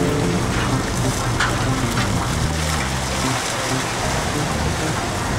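Strong wind and rough sea rushing steadily on a fishing boat's open deck, with the vessel's engine humming low and steady beneath.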